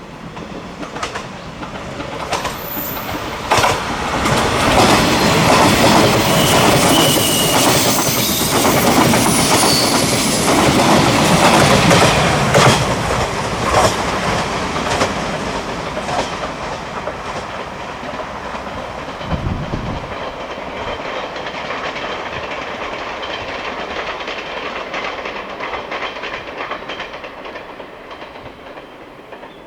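A 381 series electric train passing, its wheels clicking over the rail joints. It swells over the first few seconds, is loudest from about five to thirteen seconds in, then fades slowly away.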